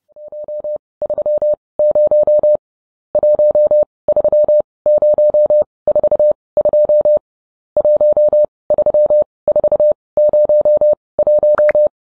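Morse code: a single steady beep keyed on and off in short and long pulses, dots and dashes in groups separated by short pauses, fading in at the start.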